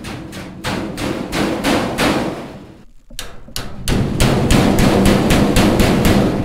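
Hammer banging over the end tab of a drive cleat on galvanized sheet-metal rectangular ductwork, folding it down to lock the joint: a steady run of sharp metal blows, about three to four a second, with a short pause about three seconds in.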